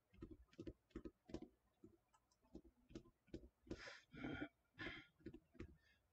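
Faint, irregular light clicks and taps, about a dozen, with three short breathy hisses near the middle.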